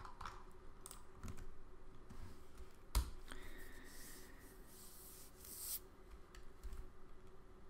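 Faint computer keyboard clicks, with one sharp click about three seconds in, followed by a soft hissing rustle lasting a couple of seconds.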